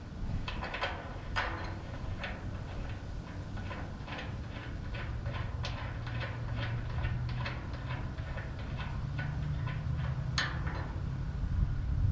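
Ratchet wrench clicking in a steady run of about three clicks a second as bolts for the bagger mounting bracket are run down, with a couple of louder metal clicks. A low steady hum sits underneath.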